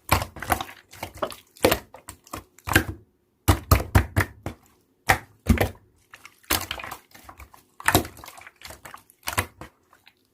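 Slime being squeezed and poked by hand, giving an irregular run of sticky clicks and snaps with short pauses. It stops abruptly near the end.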